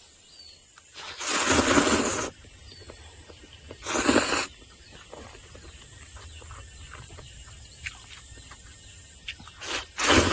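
A person slurping noodles off chopsticks: three loud slurps, about a second in, about four seconds in and near the end, with quieter chewing between.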